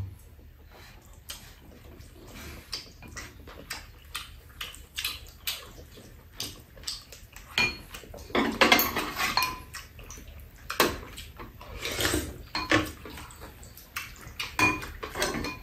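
Chopsticks and spoons clicking and scraping against ceramic bowls and a metal tray during a meal, with a few short ringing clinks. The clatter is busiest about eight seconds in.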